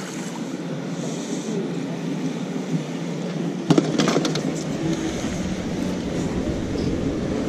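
A steady low mechanical rumble, like engine or traffic noise, runs under a burst of clicks and knocks a little over halfway in as a fishing rod and spinning reel are handled close to the microphone.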